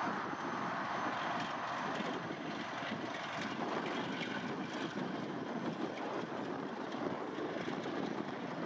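Diesel locomotive running as it moves along the track and away: a steady engine noise.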